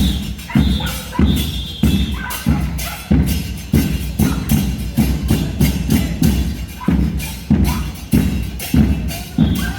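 Murga percussion band playing a steady parade rhythm: bass drums beating about twice a second, with cymbal crashes on the beats.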